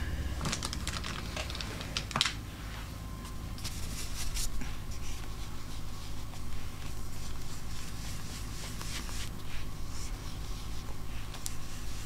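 Light clicks, taps and rubbing from handling a blending brush and an ink pad and dabbing ink onto paper, with a few sharper clicks in the first two seconds and softer irregular tapping after, over a low steady hum.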